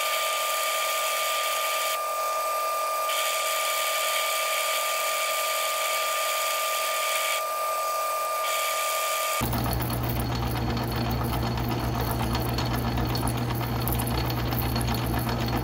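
Atlas metal lathe running in back gear while a parting blade cuts into a 4140 steel bar: a steady whine over cutting hiss with no chatter, the headstock's babbitt bearings freshly re-shimmed. About nine seconds in the sound changes, the whine stops and a low motor hum comes in.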